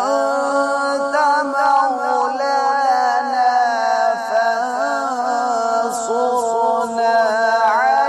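Quran recitation: a man's voice chanting Arabic in long, ornamented melodic phrases that bend and slide in pitch, with no pauses.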